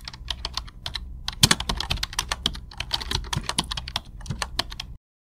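Rapid typing on a laptop keyboard: a quick, irregular run of key clicks over a faint low hum, which stops abruptly near the end.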